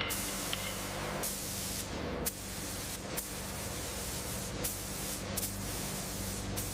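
Hissing spray noise that starts and stops in stretches of a second or so, over a steady low hum.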